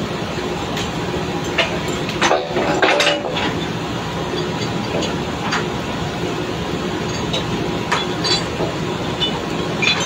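Drilling rig floor machinery running with a steady drone, with scattered metallic clanks and clinks of steel pipe-handling tools at the rotary table, a cluster of them about two to three and a half seconds in.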